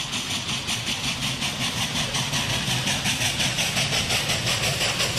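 Steam locomotive running, its exhaust chuffing in a quick, even rhythm over a hiss of steam and a low rumble.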